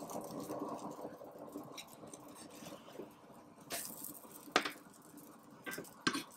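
Pancakes being flipped with a spatula in a non-stick frying pan: a few soft taps and flops as the spatula meets the pan and the pancakes land, the sharpest a little past halfway and another near the end.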